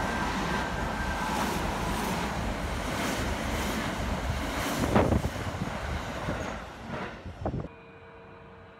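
Electric train running through a station at speed without stopping: a steady rush of wheels and air with repeated wheel clatter and a sharper clank about five seconds in. It tails off and then cuts abruptly to a low steady hum near the end.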